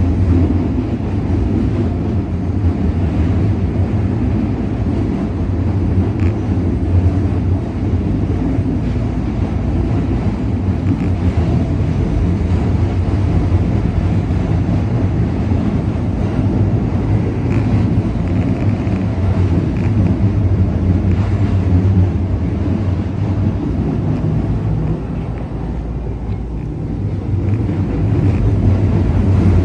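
Shin-Keisei Line electric train running along the track, heard from inside the driver's cab as a steady low rumble. It eases off briefly about 25 seconds in, then grows louder again near the end.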